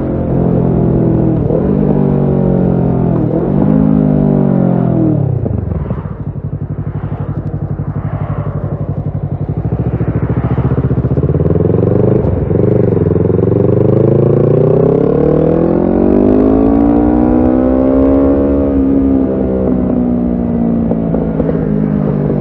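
Kawasaki Ninja 650's parallel-twin engine through a Shark SRC-4 full exhaust system, accelerating through the gears with short drops in pitch at each shift, then easing off to low revs about five seconds in. It picks up again about twelve seconds in, climbs steadily for several seconds, and eases off near the end.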